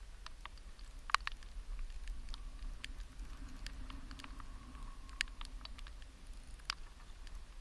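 Scattered, irregular light taps and clicks, the sharpest about a second in, over a steady low rumble of wind on the microphone.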